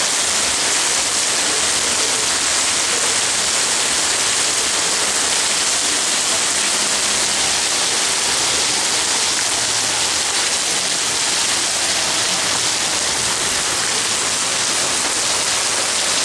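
Heavy wind-driven rain pouring steadily, a dense, even hiss with no letup.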